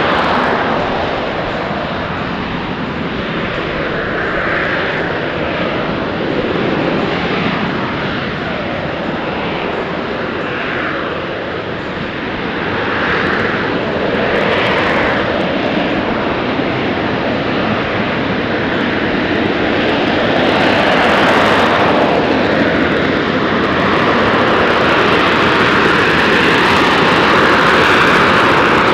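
AV-8B Harrier II's Rolls-Royce Pegasus turbofan running at hover power: a loud, steady jet noise that swells and eases as the jet holds its hover, growing louder after about twenty seconds.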